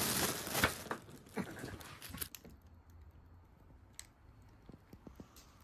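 Thin plastic carry bag rustling and crinkling as it is handled open, densest in the first second or two, then thinning to a few scattered light clicks and rustles.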